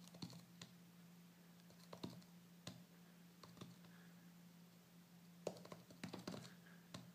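Faint, irregular soft taps of fingertips touch-typing on a Touchfire silicone keyboard overlay laid over an iPad mini's glass touchscreen, over a faint steady low hum.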